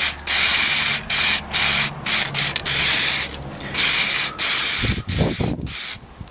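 Aerosol spray paint can hissing in about six short bursts of roughly half a second to a second each, with brief gaps between them; a short handling noise about five seconds in.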